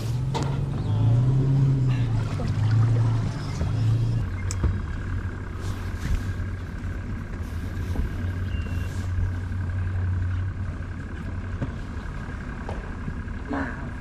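Boat's outboard motor running at low speed, its pitch wavering up and down at first and then holding steady from about four seconds in.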